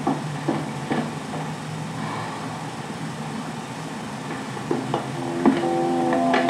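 Steady hiss and low hum of an old 16mm film soundtrack, with a few soft knocks. About five and a half seconds in, music with held notes begins.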